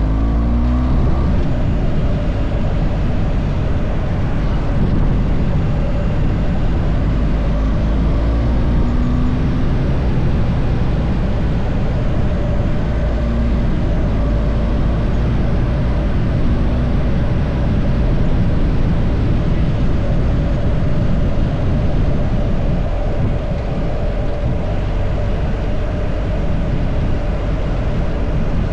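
Car on the move: a steady low rumble of engine and road noise with a faint steady hum, and brief shifts in engine pitch near the start.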